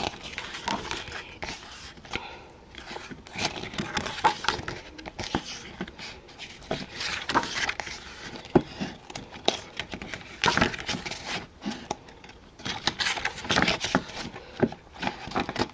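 Glossy paper pages of an album photo book being turned and handled by hand, rustling and flapping in several separate bursts.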